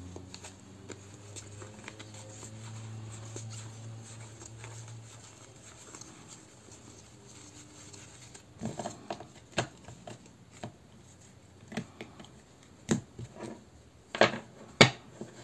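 Deck of tarot cards being handled and checked through: faint rustling at first, then from about eight seconds in a run of sharp clicks and taps as cards are flicked and set down, the loudest two near the end.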